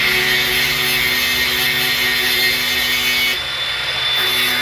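Electric power tool running steadily under load while cutting through a metal pin. The top of the hiss briefly drops out near the end.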